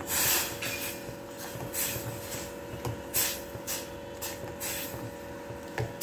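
Pot of chicken soup on the boil, with irregular bursts of hissing and bubbling over a faint steady hum.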